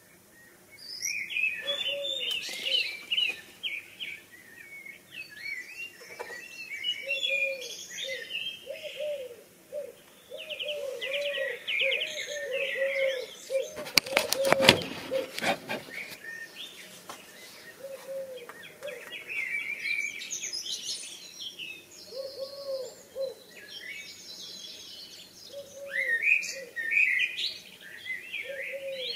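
Songbirds singing, with overlapping phrases of high chirps and trills, over a low cooing note repeated again and again, typical of a dove. A short burst of crackling clicks about halfway through is the loudest moment.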